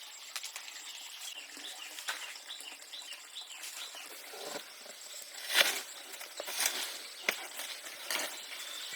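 A handful of short scrapes or knocks from work being done, the loudest just past the middle, over an outdoor background with a series of brief bird chirps in the first half.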